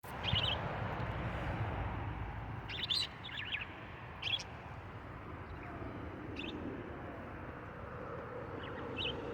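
Pet budgerigars giving short, high chirps every second or so, over a steady background hiss.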